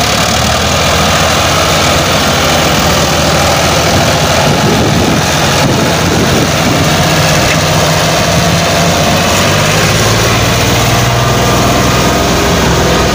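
Ford tractor's diesel engine running steadily under load as it pulls a trolley heaped with sand through mud.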